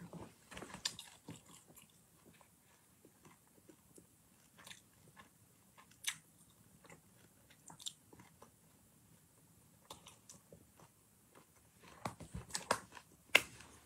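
A person chewing and biting food: scattered small crunches and mouth clicks, coming thicker near the end.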